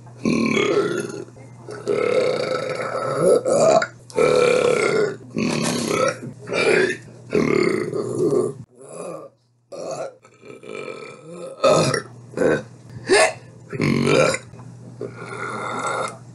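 A woman's burps, one after another: about a dozen belches, some long and drawn out, others short, with a brief silent gap a little past halfway.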